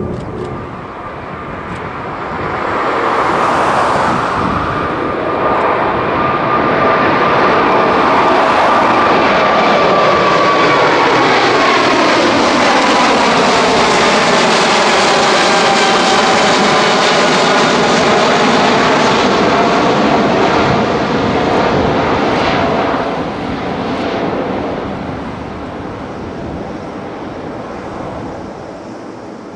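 Boeing 747-8F freighter's four GE GEnx-2B turbofans at takeoff thrust as the jet climbs out overhead. The noise builds over the first few seconds and stays loud and steady through the middle, with a whine sliding down in pitch as it passes. It then drops away in the last several seconds as the aircraft climbs off.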